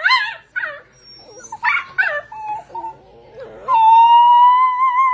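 A dog whining and yelping in short, wavering cries, then breaking into a long, steady howl about three and a half seconds in.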